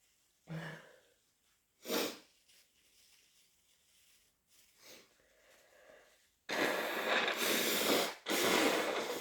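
A person's induced sneezes: a short sharp sneeze about two seconds in, then two long, loud, noisy blasts of breath, each well over a second, from about six and a half seconds.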